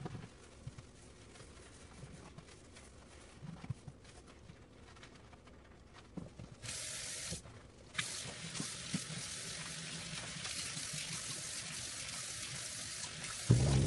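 Kitchen tap running into a sink: a short spurt about seven seconds in, then a steady stream from about eight seconds on. A loud low hum starts right at the end.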